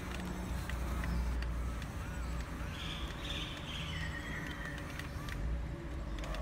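Small electric motors of an RC long-reach excavator, a CAT 320D model, whirring as the boom and stick move the bucket through sand, with a higher whine for a second or so in the middle over a steady low rumble.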